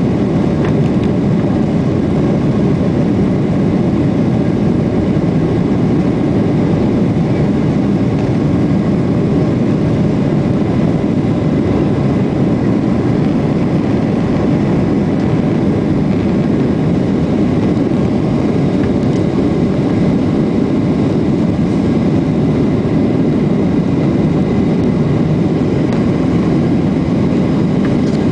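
Cabin noise inside a Boeing 737-800 climbing out after takeoff: its CFM56-7B turbofan engines and the airflow give a steady low rumble with a faint thin whine above it.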